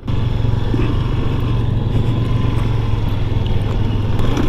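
Motorcycle engine running steadily at low speed under load, pushing a stalled bike along with a foot.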